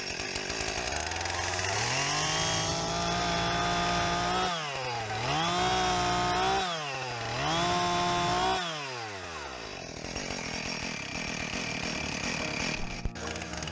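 Husqvarna two-stroke chainsaw revved to full throttle three times in a row, its pitch climbing, holding high for a second or two and dropping between bursts, as it cuts short pieces off the end of a wooden plank. It then settles back to idle, with a sharp click near the end.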